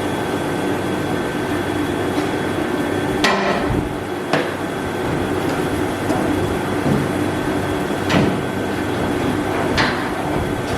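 A steady running hum with a constant whine, which fits the shop heater, and four sharp knocks at uneven gaps over it.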